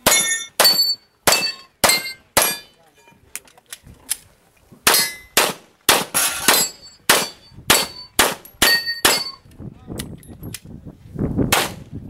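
A competitor's semi-automatic pistol firing a string of about twenty shots, mostly a half-second or less apart with a short pause about a third of the way in. Hit steel plate targets ring after many of the shots.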